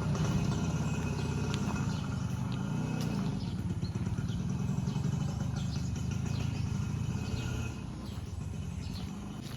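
An engine running steadily, motorcycle-like, easing off slightly near the end, with faint bird chirps.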